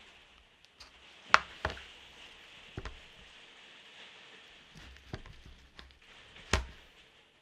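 A handful of sharp, separate knocks and clicks, the loudest about a second and a half in and another near the end, over a faint steady hiss.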